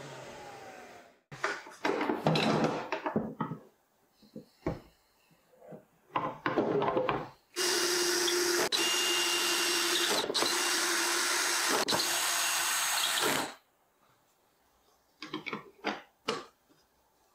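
Router spinning down, its pitch falling as it fades out. A few seconds later a cordless drill-driver runs steadily for about six seconds with three brief breaks, driving screws into a router table insert plate, and a few short knocks follow near the end.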